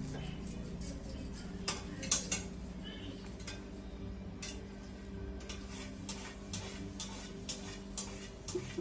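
Serving spoon scooping rice from a dough-sealed biryani pot, clicking and scraping against the pot: a few sharp clicks about two seconds in, then a regular run of about two clicks a second. A steady low hum runs underneath.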